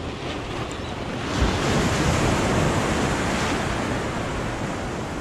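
A wave surging in and washing over the jetty rocks, swelling about a second in and then easing off, with wind buffeting the microphone.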